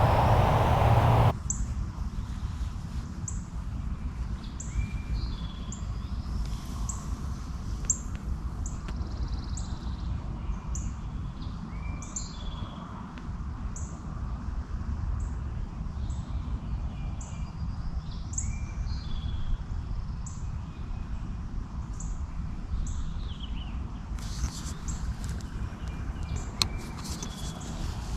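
Several songbirds singing, one repeating a short high note about once a second, over a steady low rumble. A louder noise with a low hum cuts off suddenly about a second in.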